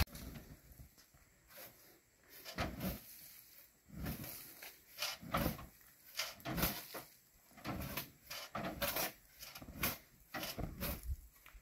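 Irregular scrapes and knocks, about one every second or so, as sand is shovelled out of the steel bed of a dump truck and dropped over the tailgate.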